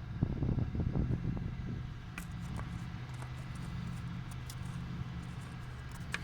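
Toyota 1ZZ-FE 1.8-litre inline-four engine idling steadily in the car, with some uneven low rumbling in the first second or so and a couple of faint clicks later.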